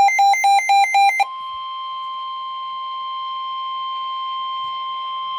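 About a second of loud, rapid beeping that alternates between two pitches, then the NOAA Weather Radio warning alarm tone, a single steady high tone at about 1050 Hz, signalling that a warning broadcast follows.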